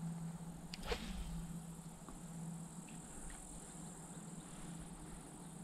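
Insects chirring steadily, a faint high-pitched drone, over a low steady hum. About a second in there is one brief swish.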